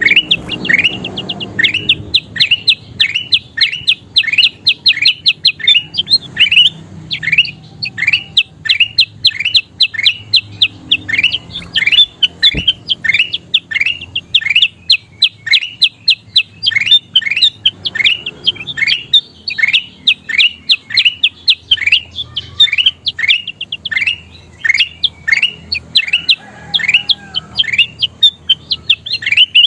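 Kutilang emas bulbul singing: a long, unbroken run of short, loud notes, each sweeping down in pitch, about two a second.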